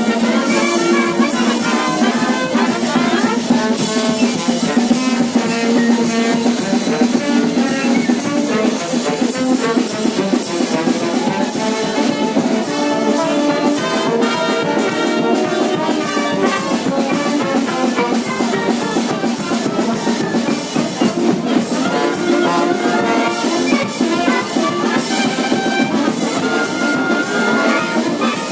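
Brass band music with drums: trumpets and trombones playing a continuous tune over a steady beat.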